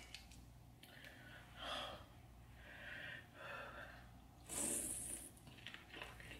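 Close-miked mouth sounds of a woman eating a sauced lobster tail: breaths and short hissy sucks. The loudest is a sharp slurp about four and a half seconds in, as she bites into the tail.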